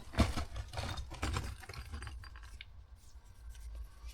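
Footsteps crunching and scraping over debris on the way into an abandoned air raid shelter. A dense run of scrapes and clicks comes in the first two seconds, then fainter, scattered ones.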